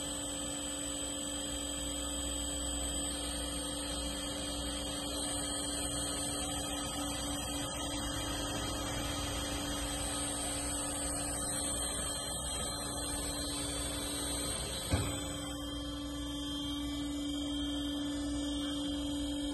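Pilous ARG 400 Plus S.A.F. semi-automatic metal-cutting band saw running with a steady electric hum and a faint high whine above it; one short click about fifteen seconds in.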